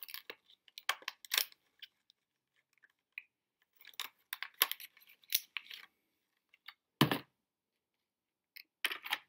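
Plastic packaging being torn open and handled: scattered crinkles, rips and clicks in several short clusters, with one sharp knock about seven seconds in.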